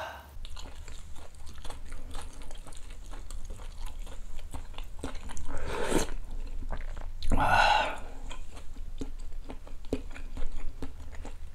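A person eating noodles in beef bone soup close to the microphone: chewing with small clicks of the utensils throughout, and two longer, louder slurps about halfway through.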